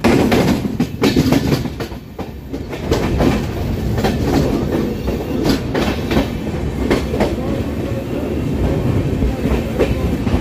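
Passenger train running along the track, heard from an open coach doorway: a steady rumble with an irregular run of sharp clacks as the wheels pass over rail joints.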